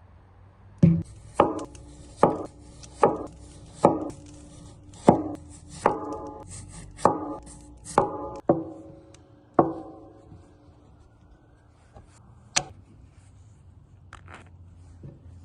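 Knife chopping on a cutting board: about eleven sharp, unhurried chops, roughly one every 0.8 s, each with a short ringing tone, then two lighter taps near the end.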